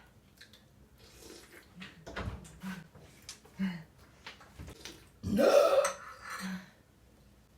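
A woman burps once, loud and long, about five seconds in, after a few seconds of small clicks and eating noises.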